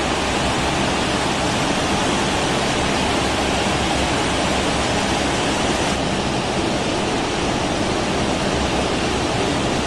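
Steady, even rushing noise with no distinct tones or rhythm, from the Airbus A380 as it taxis: engine and airflow noise.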